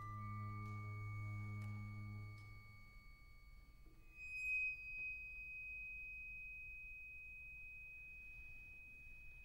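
Orchestra playing softly in a piece's fading close: a low held note dies away about three seconds in, leaving thin high held tones. About four seconds in, a bright high tone enters and is sustained quietly.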